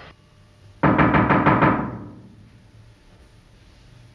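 A quick run of about half a dozen knocks on a wooden door, packed into about a second, ringing out briefly.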